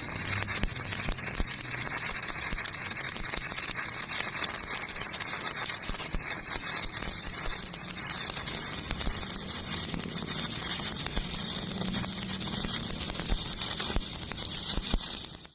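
Stick (MMA) welding arc burning steadily: a continuous crackling hiss, strongest in the high range, that cuts off suddenly at the end.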